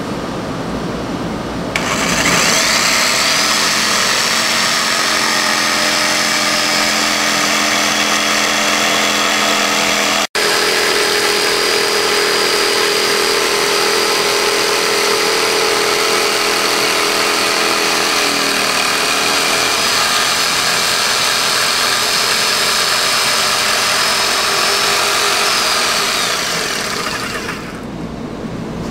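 DeWalt jigsaw (saber saw) cutting a circular hole through plywood: the saw starts about two seconds in and runs steadily with a high motor whine, breaks off for an instant about ten seconds in, and winds down near the end.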